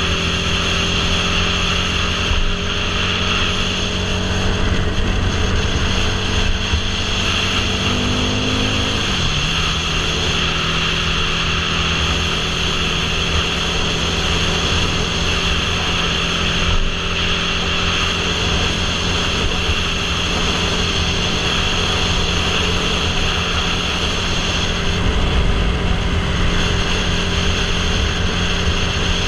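Motorcycle engine running at highway speed under heavy wind rush on the microphone. The engine note climbs slowly, falls once about nine seconds in, then holds steady.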